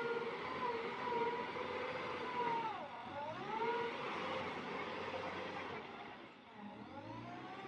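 A machine engine running with a steady whine. The pitch dips sharply and climbs back about three seconds in, and again, more faintly, near the end.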